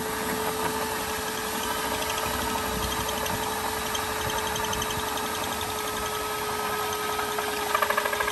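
Cordless drill turning a 2 1/4-inch hole saw in reverse through a fibreglass boat gunwale, run backwards so the fibreglass does not chip, while a shop vacuum nozzle held at the cut runs alongside. A steady, loud machine noise with one steady hum in it, growing a little louder and rougher near the end.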